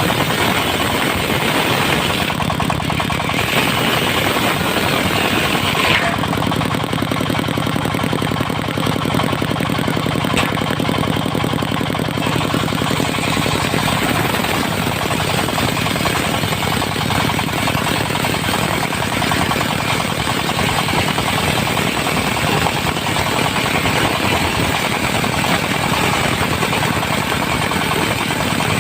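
Diesel engine driving a portable circular sawmill, running steadily with a fast, even beat; its note changes about six seconds in and again around fourteen seconds.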